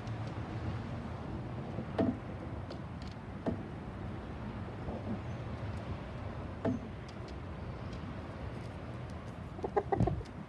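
A few short clucks from a rooster, each a brief dropping note, about two, three and a half and nearly seven seconds in, over a steady low outdoor rumble. A quick cluster of knocks and rustles comes near the end.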